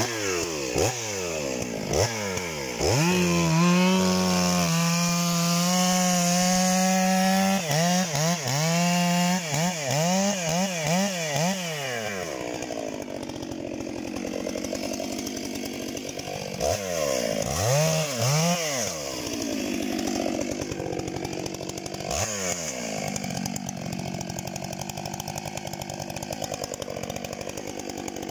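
Stihl MS 661 C two-stroke chainsaw with a 63 cm bar, revving up and down and held at full throttle for a few seconds. From about twelve seconds in it runs at a lower, rougher note as the chain cuts into the trunk of an old walnut tree, with brief rises and falls in revs.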